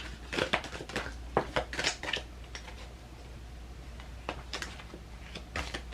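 Tarot cards being shuffled and handled: a quick run of crisp flicks and taps, a quieter stretch, then a few more flicks near the end.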